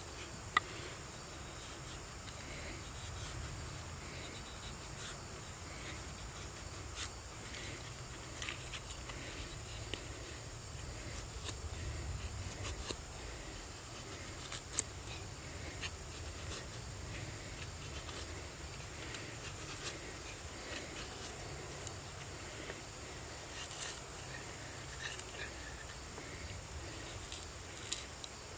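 Knife blade shaving thin curls off a wooden stick while carving a feather stick: soft scraping strokes with a few sharp clicks. A steady high-pitched insect drone runs underneath.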